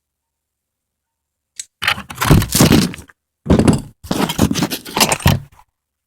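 Loud scraping and clattering of metal tools and parts being worked on an ATV cylinder head while a valve is being fitted. It comes in a few bursts over about four seconds, starting after a second and a half of silence.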